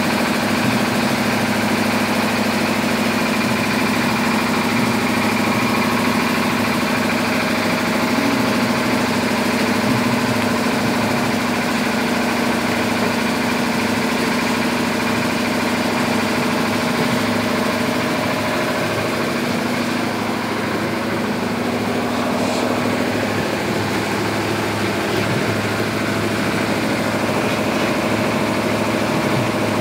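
Apple grading machine running with a steady mechanical hum from its drive motor and moving belts and rollers.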